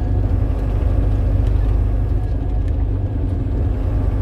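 A Star truck's engine and road noise heard from inside the cab while it drives along: a steady low drone.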